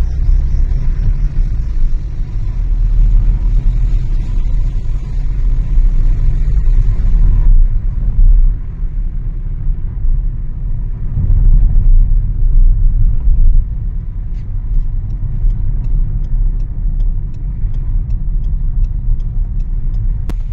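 Steady low rumble of a car driving, heard from inside the cabin, with the loudness swelling and easing. In the last few seconds a faint regular ticking comes in, about three ticks a second.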